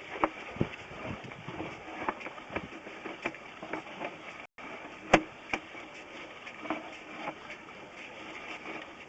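Sewer inspection camera and its push cable being fed through a plastic drain pipe: irregular clicks and knocks a couple of times a second, with one loud knock about five seconds in. The sound cuts out for an instant about halfway.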